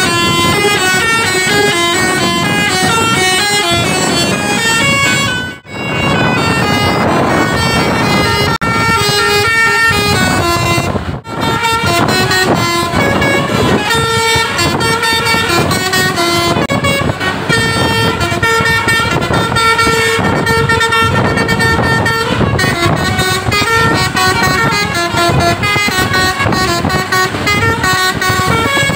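Telolet multi-tone air horns on tour buses playing quick melodic runs of notes, several horn tones sounding together and changing pitch every fraction of a second. The sound briefly drops out twice, about six and eleven seconds in.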